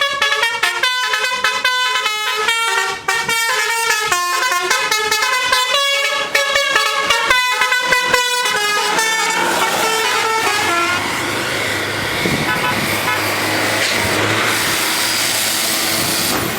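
Tour bus's basuri telolet horn playing a fast melody of quickly changing notes for about eight seconds, fading out by about eleven seconds. Then steady engine and rushing road noise.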